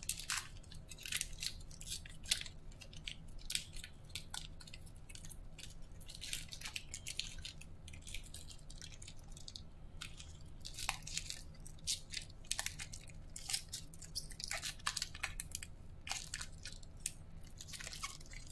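Foil-lined wrapper of a 2019-20 Panini Court Kings basketball card pack crinkling as it is torn open and peeled back by hand, in irregular bursts of crackles.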